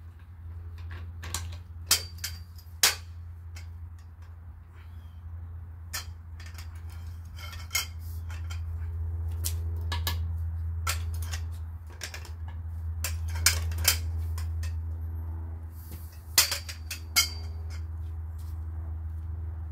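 Metal clinks and clanks of a socket and long lug wrench on a car wheel's lug nuts, irregular, with a few sharper knocks standing out, over a steady low hum.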